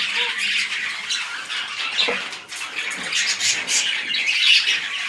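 A cage of pet parrots chattering and squawking, a dense, continuous stream of high-pitched calls from several birds at once.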